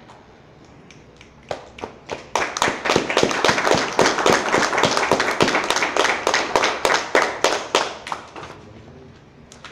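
A small audience clapping after a poem. The claps begin about a second and a half in, build to steady applause, and thin out and stop near the end.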